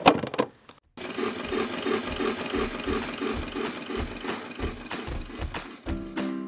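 A toy washing machine's plastic door shutting with a sharp click. About a second later a steady mechanical ratchet-like clicking starts, about four clicks a second. Music comes in near the end.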